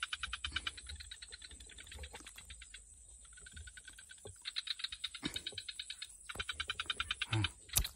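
A frog calling from the water's edge: repeated runs of rapid, evenly spaced clicking pulses, each run lasting a second or two with short pauses between. A few soft knocks of handling noise come through underneath.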